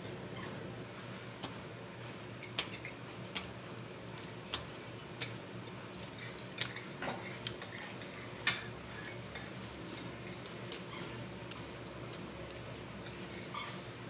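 Small plastic transformable spinner toy being handled and folded, its hard parts clicking and tapping against each other and the glass tabletop: irregular sharp clicks about once a second, the loudest a little past halfway.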